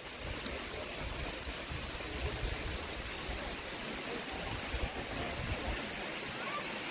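Steady rush of a forest waterfall, with uneven low wind rumble on the microphone that dies away about a second before the end.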